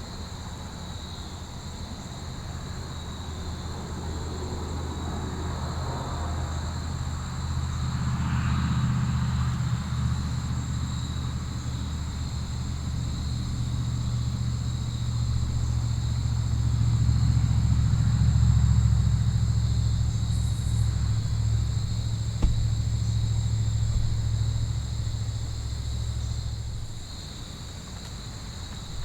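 A low engine rumble that slowly builds to its loudest a little past the middle and then drops away near the end, like a motor vehicle passing at a distance. Steady insect chirring runs above it.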